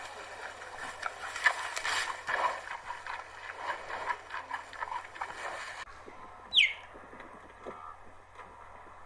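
Animal sounds: a busy chatter of short calls and clicks, then a single sharp whistle-like call falling steeply in pitch, the loudest sound here.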